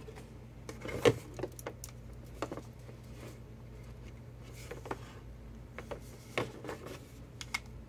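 Handling noise: scattered light clicks and knocks of hard plastic as a Hakko FR-301 desoldering gun is lifted out of its moulded plastic carry case and turned over in the hands, the sharpest knock about a second in. A low steady hum runs underneath.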